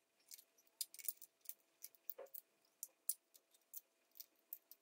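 Scissors snipping thin aluminium sheet cut from a soda can: a string of faint, irregular small clicks, about three a second.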